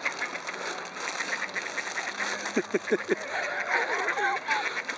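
Ducks quacking on a pond, with a quick run of four quacks about halfway through and more wavering calls after it, over a fast, steady ticking buzz.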